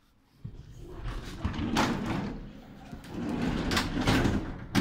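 Interior sliding door of an electric-train carriage being pushed open along its runner, rumbling and rattling in two swells, with a sharp knock near the end as it hits its stop.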